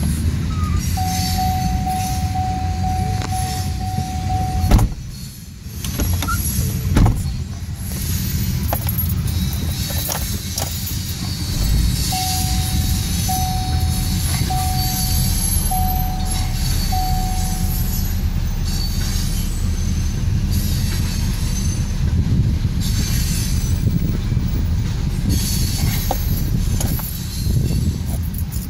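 Freight train of covered hopper cars and tank cars rolling past, a steady low rumble with a few sharp knocks from the wheels. A high squealing tone is held for a few seconds near the start, then comes back as a string of five short squeals in the middle.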